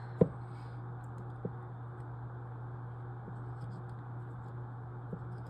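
A steady low electrical hum, with one sharp click about a quarter second in and a few fainter taps spread through the rest.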